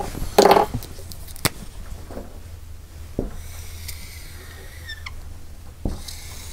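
A few sharp clicks and knocks as whiteboard markers are handled at the tray, then the faint high scratchy squeak of a dry-erase marker drawing a long stroke on a whiteboard during the second half.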